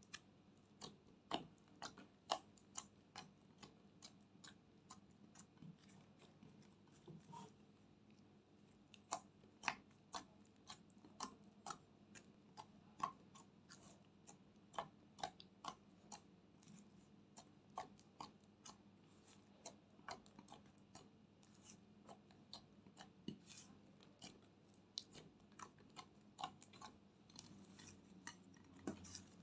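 Clear slime mixed with clay and makeup being kneaded, poked and folded by hand, giving off an irregular run of small sharp clicks and pops, a few a second at times and some much louder than the rest.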